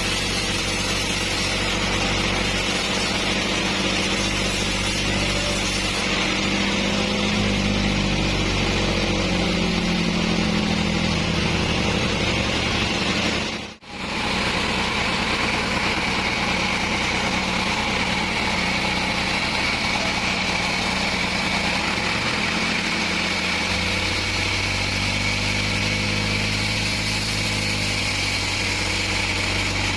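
Engine of a bandsaw sawmill running steadily, with a brief dropout about halfway through.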